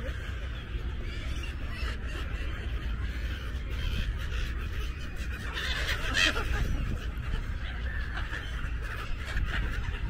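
A large flock of seagulls calling over one another in a continuous chatter, with a louder burst of calls about six seconds in.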